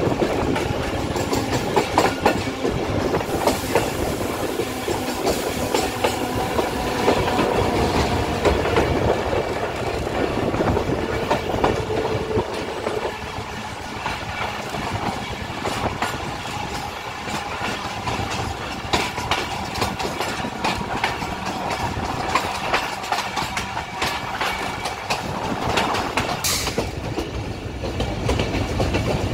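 Passenger train running along the line, heard from an open coach window: a steady rumble with the wheels clattering over rail joints, a little quieter about halfway through. A brief high hiss near the end.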